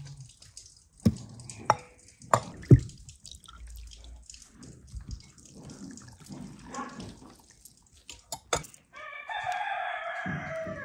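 Liquid dripping and trickling as juice is squeezed from a cheesecloth bag into a glass bowl, with a few sharp knocks in the first three seconds. Near the end a rooster crows once, for about two seconds.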